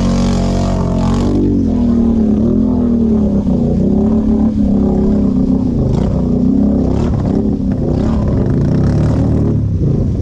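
ATV engine running hard, its pitch rising and falling repeatedly as the throttle is worked on and off.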